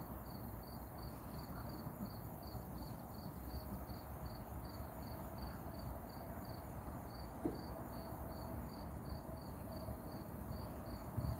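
An insect chirping steadily, about four short, high chirps a second, over a low, even outdoor rumble.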